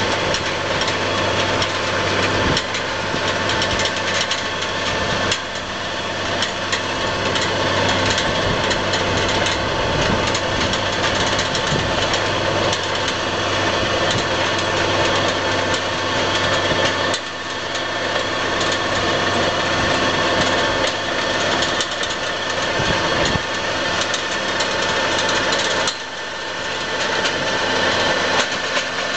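Tractor diesel engine running steadily under load, pulling a PTO-driven Maschio rotary power harrow through the soil, with the harrow's rotors and roller working the ground. The level dips briefly three times.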